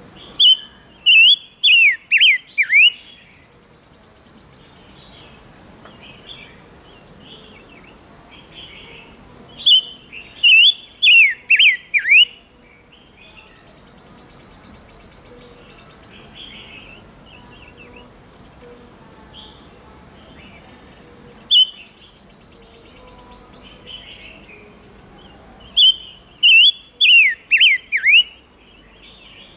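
Silver-eared mesia singing. It gives three loud phrases, each a quick run of five or six whistled notes that slur sharply downward. One comes at the start, one about ten seconds in and one near the end. Soft chirps and a single sharp note fill the gaps between the phrases.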